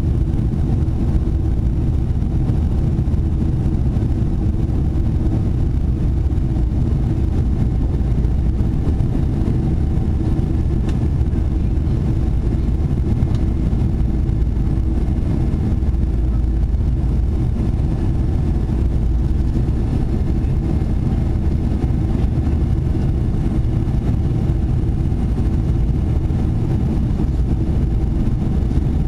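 Boeing 747 in flight heard from inside the cabin: a steady low rumble of engines and airflow that holds at one level throughout.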